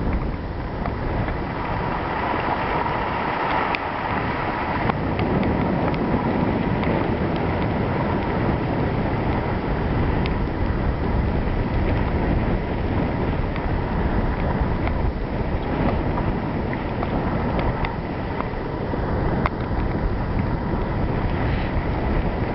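Wind rushing over the microphone of a camera moving down a snowy ski slope, with the steady hiss of gliding over snow and a few faint clicks.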